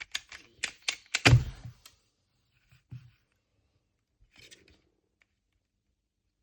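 MoYu Meilong V2 magnetic pyraminx being turned, its pieces clicking in quick succession, with one heavy thunk about a second in. After that, only a couple of faint knocks and handling rustles.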